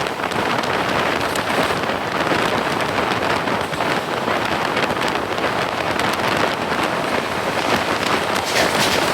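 Steady rushing noise of a moving train in heavy monsoon rain, with rain and wind crackling over it.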